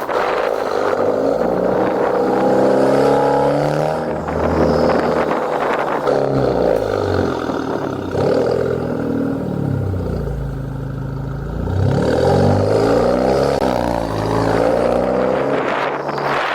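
Exhaust of a 2018 Honda Accord 2.0T turbocharged four-cylinder fitted with a catless downpipe, the engine revving up and dropping back several times, lowest about two-thirds of the way through.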